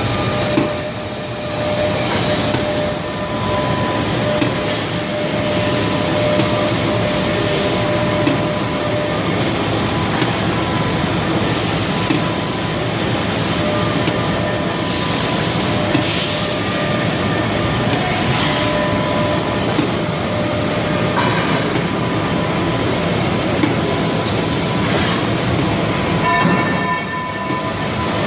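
Haas SL-10T CNC lathe running: a steady mechanical hum and hiss with constant whine tones, easing briefly about a second in and again near the end.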